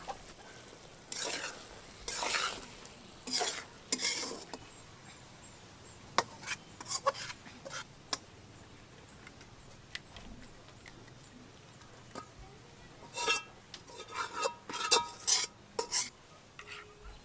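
Metal spatula stirring a thick egg and vegetable curry in a metal pot: four scraping strokes in the first few seconds, then scattered clicks. Near the end, a run of ringing clinks and scrapes as the curry is scooped out of the pot onto a ceramic plate.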